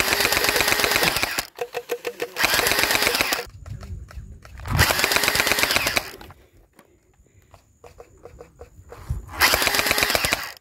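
Electric gel blaster firing on full auto in four bursts of about one to one and a half seconds each: a fast rattle of shots over the whir of the motor. A few scattered clicks fall between the bursts.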